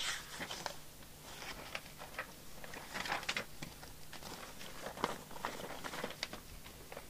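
Irregular light clicks and taps from handling tools and equipment on a workbench, over a faint steady low hum.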